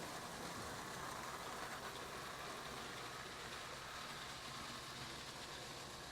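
Marx electric toy train running around its track, a steady whir and rattle of the locomotive's motor and the cars' wheels on the rails.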